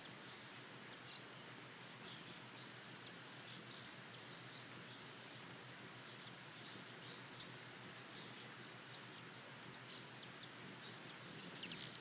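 Hummingbirds at a feeder: faint, high, short chips scattered throughout over a steady low hiss, with a louder burst of high squeaky notes about a second before the end.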